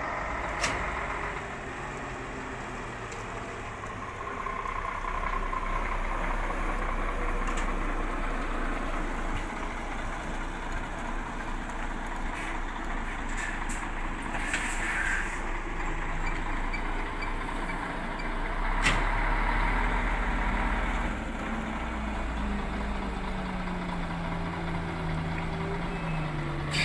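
Diesel semi-truck engines running in a truck yard. A steady low rumble is broken by a few sharp clicks. Near the end a tractor-trailer's engine comes in louder as it pulls forward.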